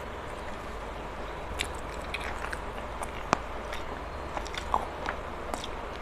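Close-miked eating sounds: a mouthful of rice being chewed, with small wet clicks and smacks and one sharper click about three seconds in, over a steady low hum.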